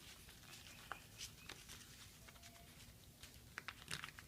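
Faint rustles and small clicks of a sheet of paper being handled and creased while folding a paper airplane, a few more near the end.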